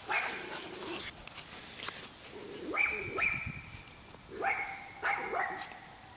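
Chocolate Labrador retriever puppy giving a few short, high-pitched yips, about halfway through and twice more near the end.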